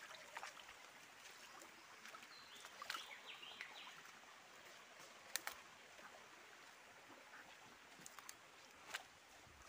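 Faint forest ambience: footsteps rustling through dry leaf litter with a few sharp snaps, the sharpest about halfway through, and a few bird chirps.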